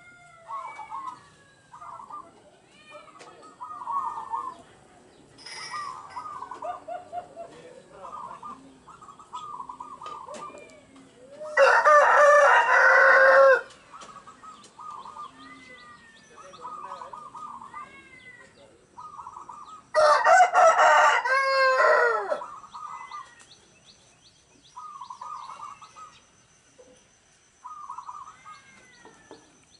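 Caged zebra doves (perkutut) cooing over and over in short staccato phrases, the vigorous singing used to lure wild doves. A rooster crows loudly twice, once about twelve seconds in and again about twenty seconds in, and small birds chirp.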